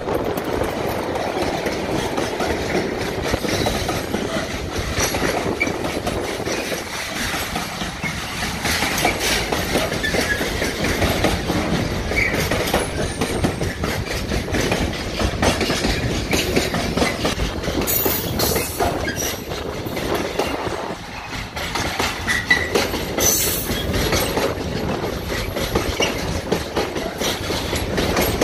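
Long container freight train rolling past close by, its wagon wheels clacking steadily over the rail joints, with the rumble of the diesel locomotive dropping away in the first few seconds. A couple of brief high wheel squeals cut through in the second half.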